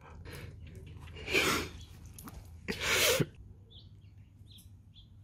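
Two breathy, sneeze-like snorts about a second and a half apart, followed by faint bird chirps.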